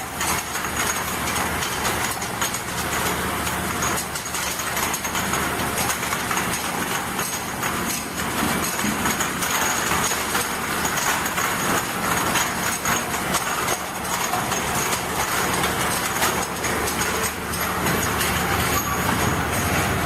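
Automatic bottle and vial washing machine running: a steady machine hum with dense, continuous clicking and rattling.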